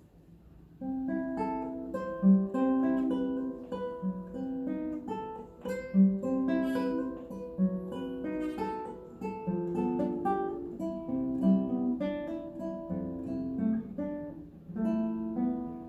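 Nylon-string classical guitar played fingerstyle: a melodic passage of plucked notes and chords that starts about a second in, with a brief break near the end.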